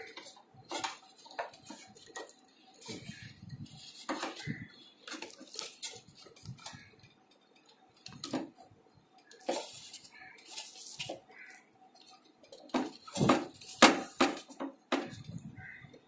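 Irregular clicks, knocks and metallic clinks from hands handling a microwave oven's sheet-metal control panel and its wiring, pushing and fitting wire connectors. The loudest knocks come near the end.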